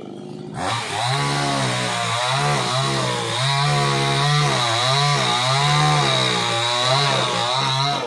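Chainsaw cutting through a felled palm trunk. It starts abruptly about half a second in, and its engine note rises and falls repeatedly as the chain bites, over a steady high whine.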